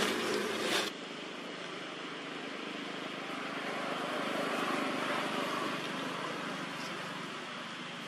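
A louder, noisy sound cuts off abruptly about a second in, leaving a steady outdoor background hiss with no distinct events.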